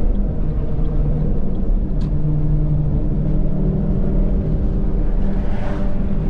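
Car driving at road speed, heard from inside the cabin: a steady low rumble of tyres and engine with a droning hum.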